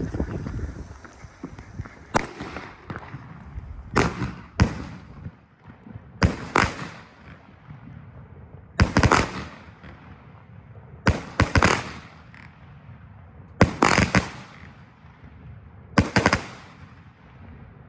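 A 21-shot consumer firework cake firing, its shells launching and bursting overhead. The sharp bangs come every two to two and a half seconds, mostly as two reports close together.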